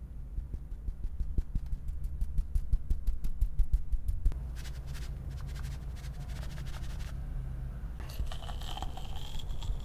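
Cocoa powder being sifted over the cream top of a tiramisu: a fast run of light ticks for about four seconds, then softer ticks. Near the end a knife cuts into the dessert with a scraping squeak.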